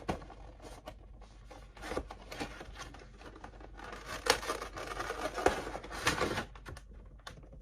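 Cardboard box and plastic packaging being handled as a vinyl figure is taken out: rustling, scraping and light clicks, busiest in the second half.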